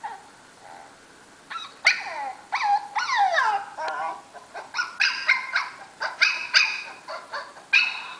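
A dog giving a rapid run of high-pitched yips and whimpers, several sliding down in pitch, starting about a second and a half in.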